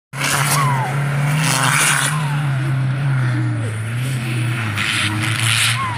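Engine of an off-road 4x4 driving hard on a dirt course: a steady drone that drops slightly in pitch, with three louder surges of revving.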